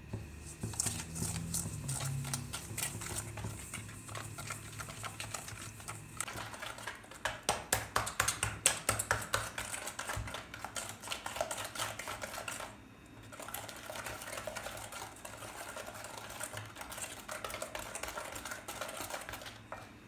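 Eggs being beaten by hand with a whisk in a stainless steel bowl: fast, even clicking and scraping of the wires against the metal, stopping briefly about two-thirds of the way through.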